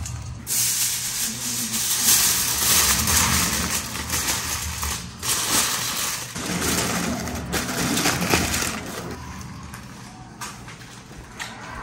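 Aluminum foil crinkling and crackling as it is folded and crumpled tightly around a smoked pork butt, dying down near the end.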